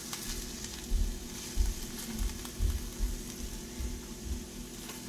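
Ground beef with diced onion and bell pepper sizzling in a frying pan, with a steady hiss, while a spatula breaks up the meat, giving several soft knocks against the meat and pan.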